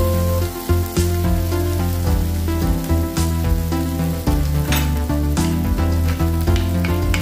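Background music with a steady bass line, and under it a pan of shredded chicken and vegetables frying with a light sizzle as it is stirred with a wooden spatula.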